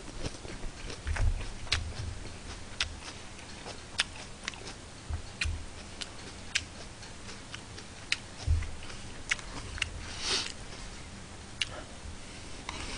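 Close-miked chewing and mouth sounds of a person eating with chopsticks, with scattered short clicks and a few low thumps. A brief noisy burst comes about ten seconds in.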